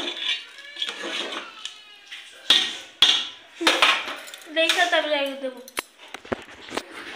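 A spoon knocking and scraping in an aluminium pot of rice pudding, with sharp metallic clinks about two and a half and three seconds in. A short voice is heard around five seconds in.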